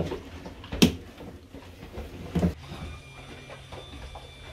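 Two clunks, about a second and a half apart, as a houseboat's helm gear (spoked steering wheel and outboard remote-control lever) is handled. A faint steady low hum follows.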